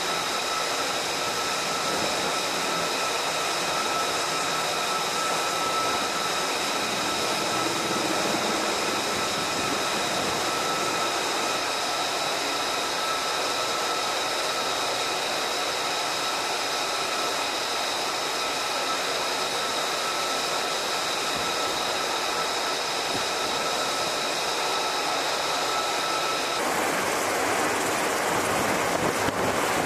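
Steady machine whine of several high tones over a constant rushing noise; the whine cuts off near the end, leaving the rushing noise.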